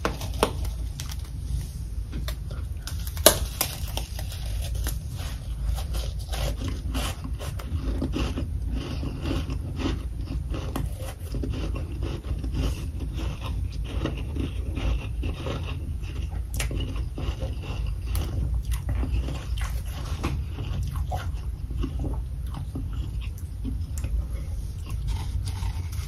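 Freezer frost being bitten and chewed: a dense, continuous run of soft crackling crunches, with one sharper, louder crack about three seconds in, over a steady low rumble.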